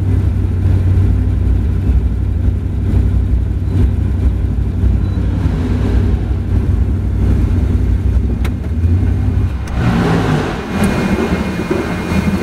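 Sigma 11 racing car's engine running at low speed and idling, heard from inside the cockpit, with a steady low note as the car crawls to a stop. About ten seconds in the low note falls away and a rougher, noisier sound takes over.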